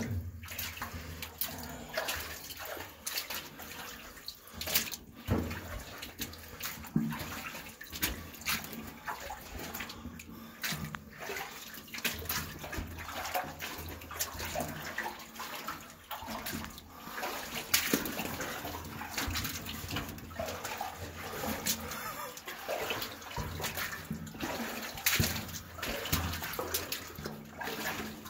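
Water splashing and trickling, with many irregular sharp splashes through a steady wash of running water.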